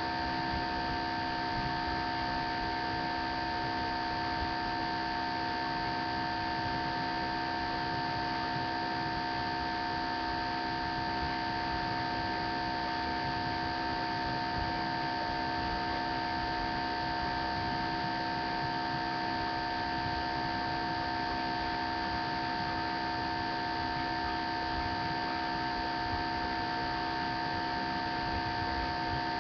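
Steady electrical hum and hiss, with several fixed tones that never change.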